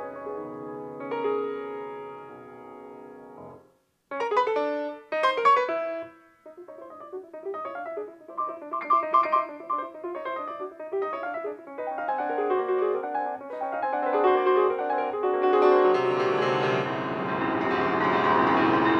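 Piano music: held chords, a brief break about four seconds in, then a few struck chords and busier playing that grows fuller, with deeper notes, near the end.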